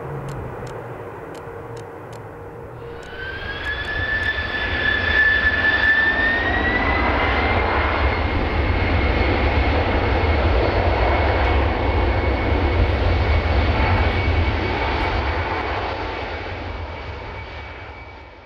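Jet airliner engines. For the first few seconds the Airbus A340 rolls out on the runway with a quieter engine rumble; about three seconds in, a different engine sound begins, its whine rising in pitch as the engines spool up and then holding steady over a loud low rumble, fading out near the end.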